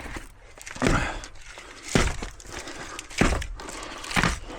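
Four heavy knocks about a second apart on a scrap transformer, with scraping between them, as its copper windings are worked loose from the core.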